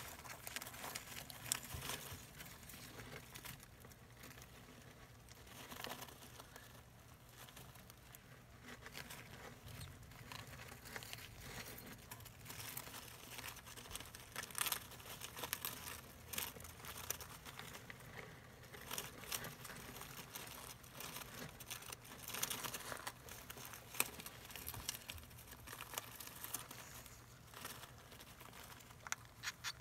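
Shredded newspaper bedding rustling and crinkling as an African soft-furred rat shifts about in its nest over its young, with irregular small crackles and ticks.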